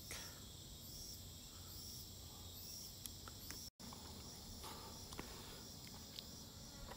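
Faint chorus of tropical forest insects: a steady high-pitched buzzing with chirps that repeat every half second or so. The sound cuts out for an instant about halfway through.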